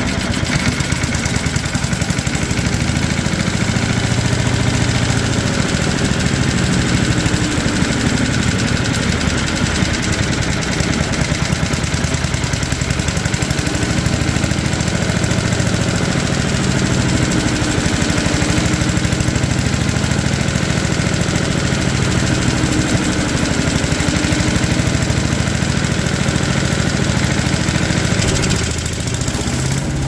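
Tecumseh single-cylinder engine on a Craftsman wood chipper running steadily after a carburettor cleaning, its speed hunting a little at low throttle. It dips briefly near the end.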